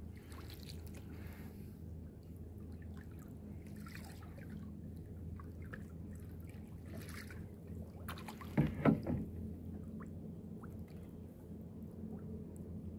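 Wooden paddle dipping and splashing in calm sea water beside a dugout outrigger canoe, with soft strokes a few seconds apart. A brief louder knock, about eight and a half seconds in, stands out over a steady low hum.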